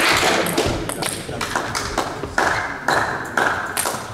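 Table tennis ball clicking sharply off bats and table, a run of hits about two a second, each with a short hollow ring. A loud rush of noise fills the first second.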